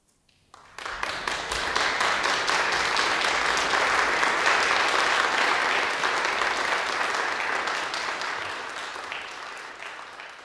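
A small congregation applauding: the clapping starts about half a second in, quickly builds to a steady level, then dies away over the last few seconds.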